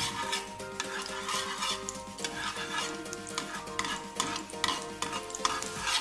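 A spatula stirring and scraping through melted ghee in a non-stick frying pan in repeated strokes, with the ghee sizzling on a low flame. Soft background music with a slow melody runs underneath.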